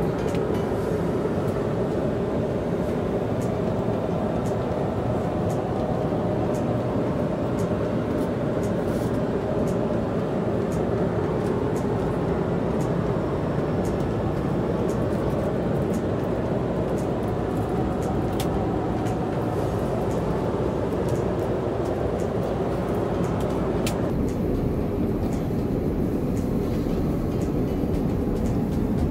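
Steady cabin noise of an Airbus A350 airliner in cruise flight: a constant low rumble and rush of air, with a few faint clicks.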